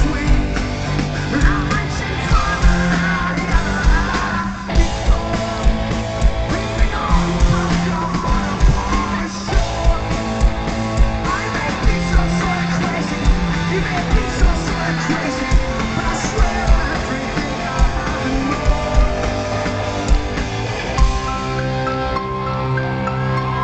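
Rock music with electric guitar, bass and drums keeping a steady beat, and singing over it.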